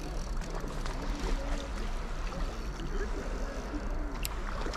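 Steady wind rumble on the microphone, with faint distant voices and one sharp click near the end.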